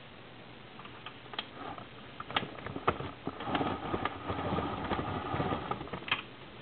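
Small camera lens zoom motor whirring with a steady whine for about three seconds, among clicks and light knocks of the camera being handled; a sharp click near the end.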